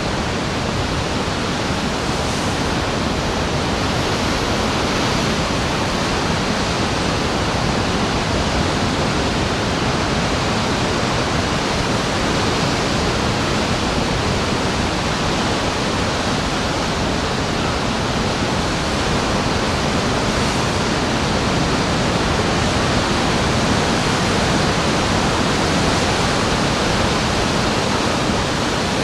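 Ocean surf, a continuous steady rushing of breaking waves with no distinct swells or pauses.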